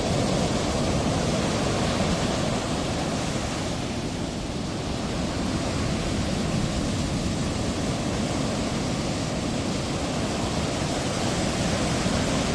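Steady rushing noise of ocean surf breaking, with no distinct crashes.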